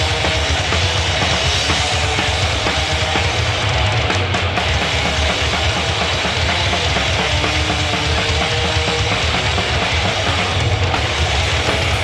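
Live grindcore-thrash punk band playing at full volume, with distorted guitars, bass and a drum kit in a dense, unbroken wall of sound.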